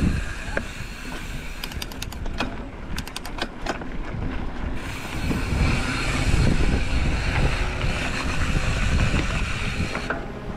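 Riding a bicycle on a dirt trail: wind buffeting the microphone over tyre rumble, with a run of sharp clicks and rattles about two to four seconds in.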